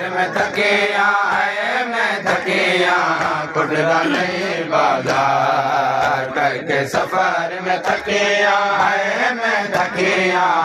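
Group of men chanting a Seraiki noha, a mourning lament, in unison, with sharp chest-beating slaps (matam) about once a second keeping the beat.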